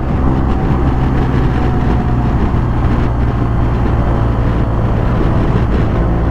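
BMW R1250GS boxer-twin engine running at a steady cruising speed in fourth gear, with road and wind noise.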